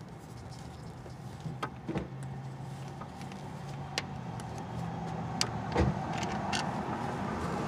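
Scattered light metallic clicks and taps from hand tools working the starter's mounting bolts, over a steady low hum that slowly grows louder.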